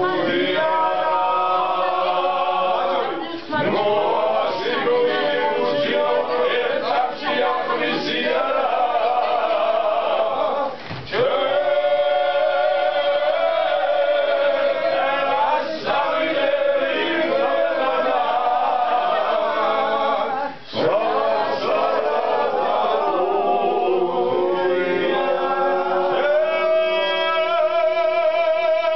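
A group of men singing a cappella in several parts, a Georgian polyphonic table song, with short breaks between phrases.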